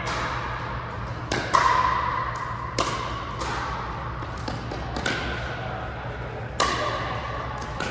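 Pickleball paddles striking the plastic ball in a rally: about half a dozen sharp pops a second or so apart, each echoing in a large hall, the loudest about one and a half seconds in. A steady low hum runs underneath.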